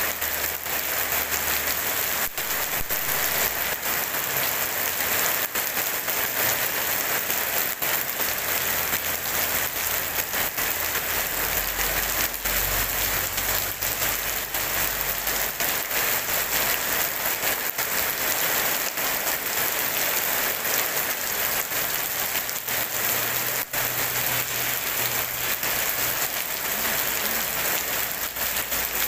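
Heavy rain falling steadily and splashing on wet pavement and puddles, with no thunder.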